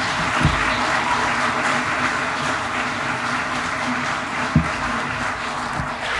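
Audience applauding steadily, with two dull thumps, about half a second in and near the five-second mark.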